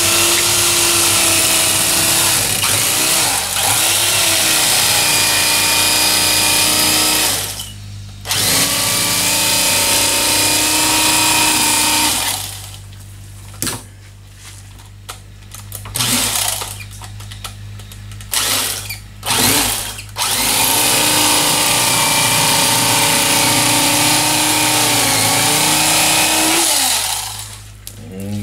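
Corded electric fillet knife running while cutting a fillet off a bowfin: a steady motor hum that runs for several seconds, stops briefly, and runs again. Then comes a quieter stretch with a few short blips of the motor, and a last long run near the end.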